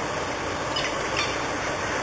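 A small bird chirping in short, quickly repeated notes over a steady rushing hiss.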